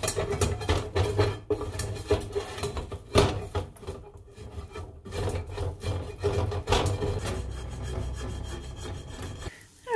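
Plastic slotted spatula scraping burnt-on pancake residue off the bottom of a stainless steel frying pan in rapid repeated strokes, stopping near the end.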